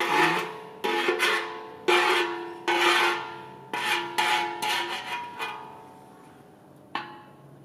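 Metal rod scraping and knocking around a metal oil drain pan, about one or two strokes a second, the pan ringing at the same pitches each time. It is stirring freshly drained engine oil from a Subaru EJ20 turbo to look for metal shavings, a sign of a failed bearing.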